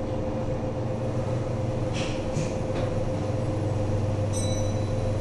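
Passenger lift car travelling upward between floors, heard from inside the car: a steady low hum with a fainter higher tone, and a few light clicks about two seconds in.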